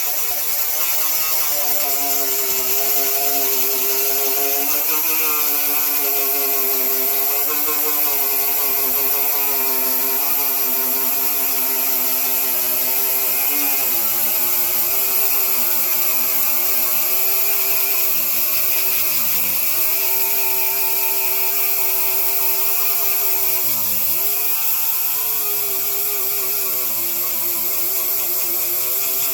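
A handheld power tool running steadily under load, with a wavering hum and a strong hiss, its speed sagging briefly twice in the second half as it bears down harder.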